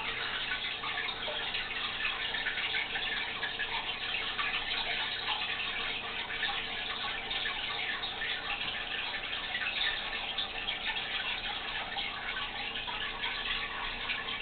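Aquarium water trickling and bubbling steadily at the surface, a continuous fine crackle of small drips and splashes.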